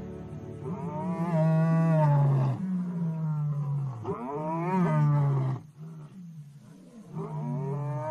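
A lion roaring: a run of long calls, each falling in pitch, broken by a short pause before the last one.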